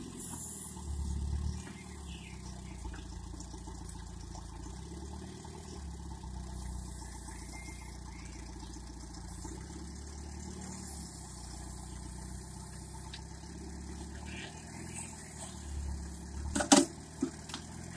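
Homemade tractor's engine running steadily at low revs, swelling briefly about a second in, with one sharp knock near the end.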